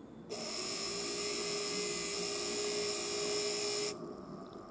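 Maxon 2140.937 DC motor's armature spinning at speed on 12 V, driven through alligator clips touched directly to its commutator in place of brushes. A steady high-pitched whine starts about a third of a second in and cuts off sharply just before four seconds, when the clips are lifted.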